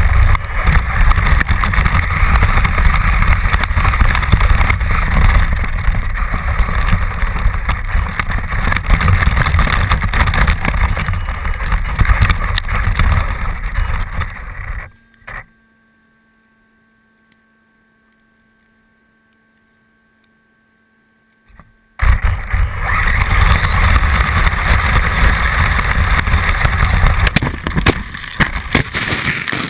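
Loud, dense wind rumble on the microphone, with a vehicle running underneath, in a snowstorm. It cuts to near silence for about six seconds in the middle, then comes back just as loud.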